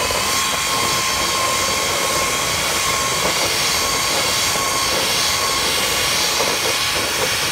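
Electric mixer motor running steadily at speed with an even whine, its beaters whipping a confectioner's-sugar and milk glaze in a glass bowl under a plastic splatter shield.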